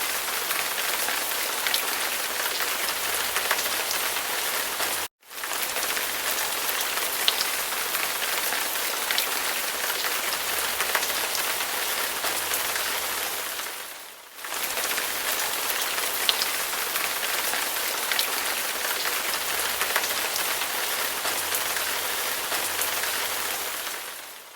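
Steady rain falling, a dense even hiss with many individual drops ticking. The sound cuts out abruptly for an instant about five seconds in, and dips away briefly again around fourteen seconds and at the end.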